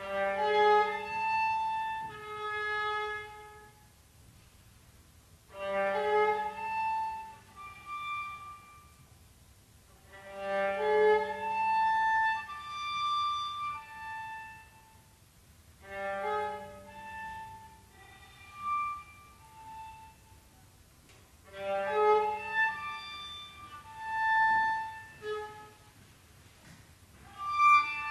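Contemporary chamber music from bowed strings, led by a viola. It plays six short, broken-off phrases of a few seconds each, separated by pauses of a second or two. Each phrase opens with a low held note under the higher notes.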